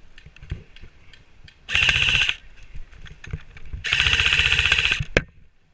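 Krytac CRB airsoft electric rifle firing two full-auto bursts, a short one about two seconds in and a longer one about four seconds in, each a rapid even rattle of shots; a single sharp click follows just after the second burst.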